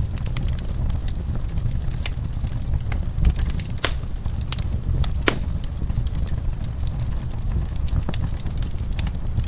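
Fire in a fireplace crackling: scattered sharp pops and snaps over a steady low rumble, with two louder pops near the middle.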